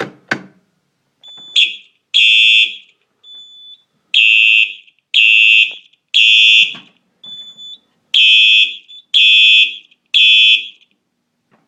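A fire alarm pull station is pulled with a few sharp clicks. Then a Simplex 4903-9236 electronic horn sounds the temporal-three evacuation pattern: loud, high-pitched blasts three in a row about a second apart, with a pause between groups and a fainter steady beep in the gaps. The horn stops shortly before the end.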